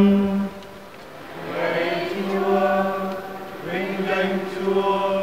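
A priest's chanted line ends on a held note, then a large congregation sings its short response to the Gospel announcement in unison, in two phrases.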